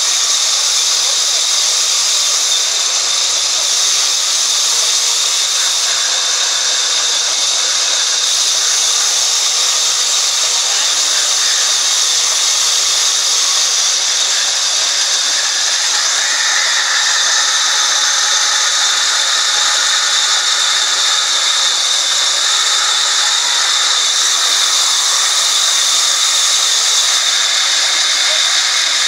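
Vertical band sawmill blade cutting lengthwise through a log as it is fed along the table: a loud, steady, high whining hiss with a constant high tone.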